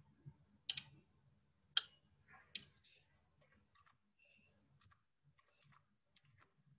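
Computer mouse and keyboard clicks: a few sharp clicks in the first three seconds, then faint key taps as a number is typed.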